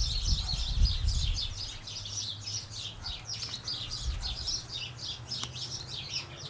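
A busy chorus of small birds chirping continuously, many short high notes overlapping, with a low rumble in the first couple of seconds.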